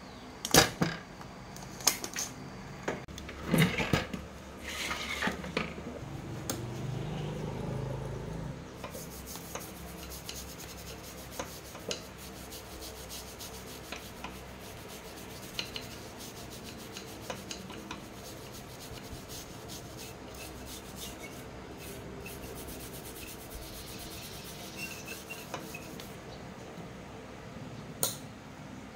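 Spring-loaded hand desoldering pump snapping off about four times in the first five seconds as solder is sucked from a circuit board. Then light rubbing, scraping and ticking of hands working over the board and its components, with one more sharp click near the end.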